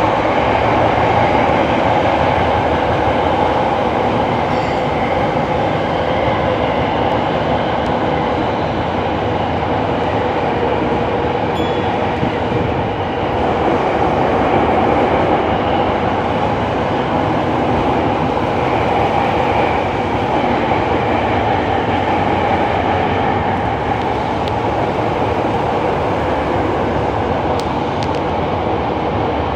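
Eidan (Tokyo Metro) 7000 series subway train running through a tunnel, heard from inside the car. It makes a steady, loud running noise, the train's distinctive "kotokoto" running sound.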